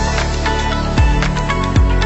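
Background music with a steady beat and deep bass hits that slide down in pitch, twice.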